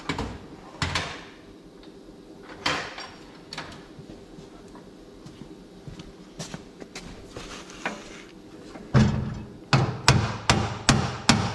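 Scattered knocks and clinks of metal tools being handled. About nine seconds in, a steady run of hammer blows begins, two to three a second, on a steel punch set on the rusted, seized front steering spindle of a John Deere 175 riding mower, driving the spindle down out of the axle.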